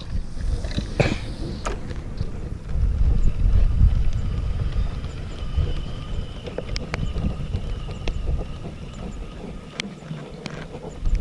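Wind buffeting the microphone outdoors, an uneven low rumble that swells about three seconds in, with scattered light clicks.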